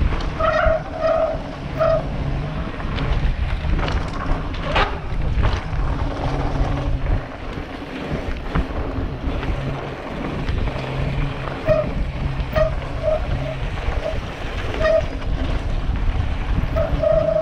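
Wind buffeting a helmet camera's microphone as a mountain bike runs down a dirt trail, with tyre rumble and knocks and rattles from the bike over the bumps. Short pitched tones come and go, in a cluster near the start and again over the last few seconds.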